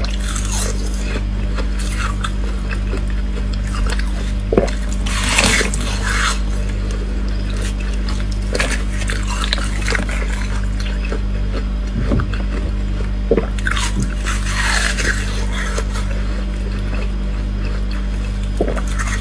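Ice being bitten and crunched in the mouth, with short crackling crunches and clicks of ice pieces, loudest in two spells about five seconds in and about fifteen seconds in. A steady low electrical hum runs underneath throughout.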